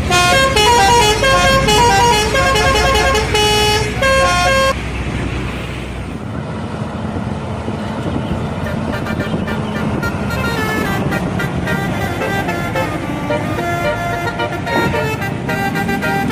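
Bus telolet horn, a set of electrically switched air-horn trumpets, playing a quick multi-note tune for about five seconds. It cuts off abruptly, leaving a bus engine rumble and traffic noise. From about ten seconds in, softer horn notes sound again.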